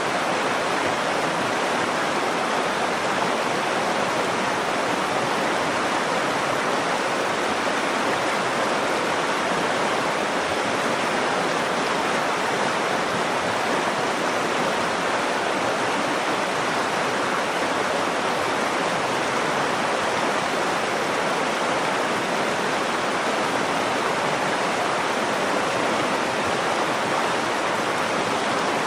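Nakdong River water flowing, a steady, even rush with no breaks or changes.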